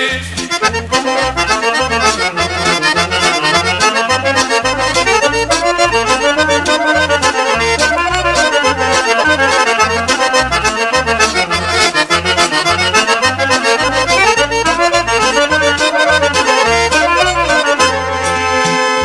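Instrumental break in a Bosnian folk song: an accordion plays fast melodic runs over a stepping bass line and rhythm accompaniment, with no singing.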